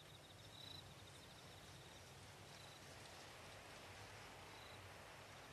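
Near silence with faint cricket chirps, a short high trill about every two seconds, over a low background hum.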